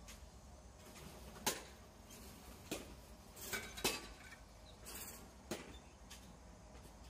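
Batting-cage knocks: about six sharp cracks of baseballs being struck, launched and hitting the netting, the loudest about a second and a half in and just before four seconds in, over a faint low background hum.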